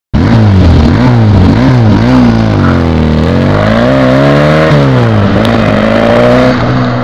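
Car engine revving and accelerating, its pitch rising and falling several times and then climbing long before settling to a steadier note near the end. It starts abruptly.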